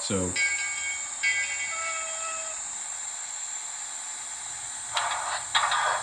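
Model steam locomotive's DCC sound decoder: a quick falling sweep, then a multi-note steam whistle sounded in two parts, and short bursts of steam hiss near the end.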